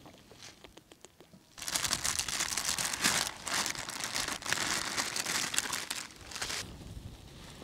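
Clear plastic food bag crinkling loudly as hands open it and pull out a snack bar, starting about a second and a half in and stopping near the end.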